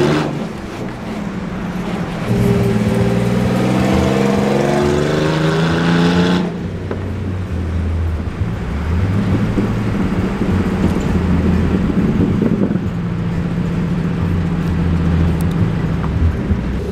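Car engine and road noise heard from inside the cabin while driving, the engine's pitch climbing as it accelerates over the first several seconds. About six and a half seconds in the sound changes abruptly, and the engine then runs more steadily at a lower pitch.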